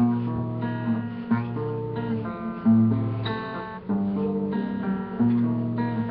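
Acoustic guitar strumming chords, with a new chord struck about every second and a quarter.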